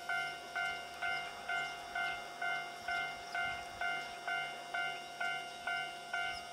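Railway level-crossing alarm ringing, an even ding about twice a second, warning of an approaching train.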